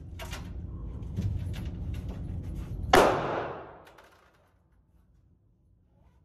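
A single loud gunshot about three seconds in, ringing on briefly in the enclosed indoor range. A few fainter sharp cracks come before it.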